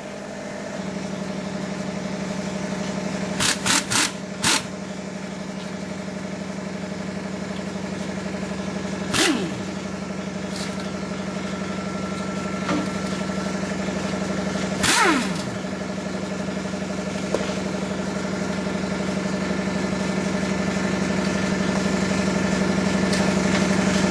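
Pneumatic ratchet giving several short bursts as it undoes the clutch pressure plate bolts: a cluster about four seconds in, then single bursts about nine and fifteen seconds in. Under them runs a steady motor hum.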